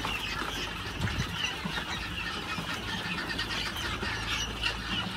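A large flock of young guinea fowl keets peeping, with many short high chirps overlapping into a continuous chatter. A low steady hum runs underneath.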